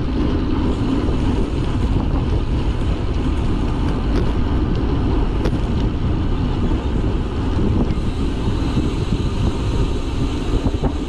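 Steady wind buffeting the microphone of a moving rider, a dense low rumble with no let-up.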